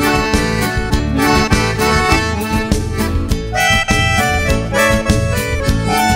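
Background music led by accordion, with a steady beat.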